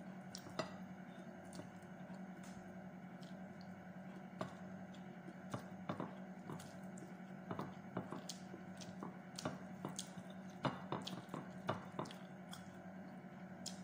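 Close-up eating sounds: wet chewing and mouth smacks, with scattered small clicks as fingers pick food from a plate, over a steady low hum.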